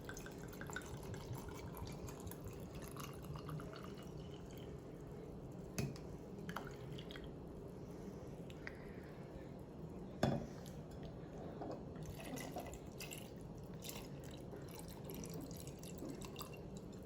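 Sangria poured from a bottle into a glass, the pitch rising slowly over the first few seconds as the glass fills, with small drips and ticks. There are two sharp knocks, about six and ten seconds in, the second the loudest.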